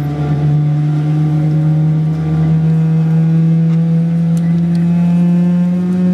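A Boeing 777-300ER's GE90-115B turbofan engine heard from inside the cabin over the wing: a loud steady drone whose pitch rises slowly and evenly throughout, as the engine spools up.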